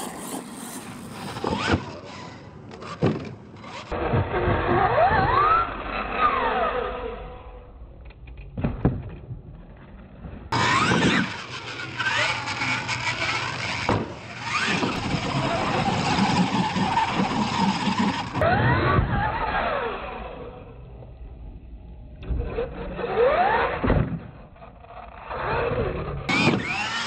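Radio-controlled monster truck's electric motor whining, rising and falling in pitch again and again as the throttle is blipped and released, with drivetrain and tyre noise on loose dirt.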